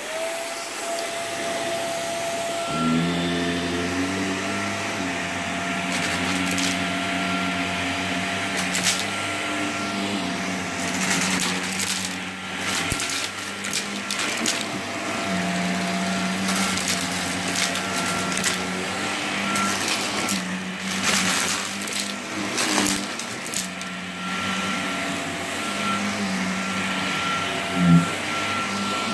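Shark upright vacuum cleaner running over a shag rug: a steady motor whine, joined about three seconds in by a lower hum. Scattered crackles come as it sucks up crumbs, with one sharp knock near the end.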